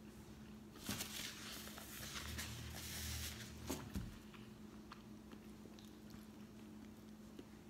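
A person chewing a mouthful of microwaved chicken burrito: soft wet mouth clicks, with a louder, noisier stretch from about one to four seconds in, then quieter chewing. A faint steady hum runs underneath.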